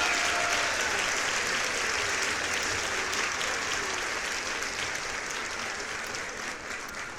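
Audience applauding, the clapping slowly fading away, with a voice or two calling out over it at first.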